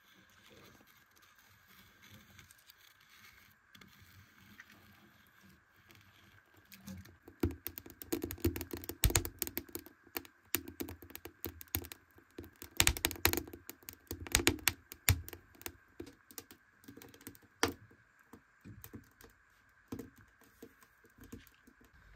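Irregular clatter of sharp knocks and clicks from hard objects being handled, thickest and loudest in the middle stretch, over a faint steady high tone.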